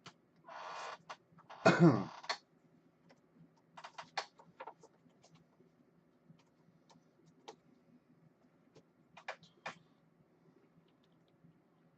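Light clicks and rustles of trading cards and plastic card holders being handled, with a short rustling hiss about half a second in and a brief vocal sound that falls in pitch about two seconds in.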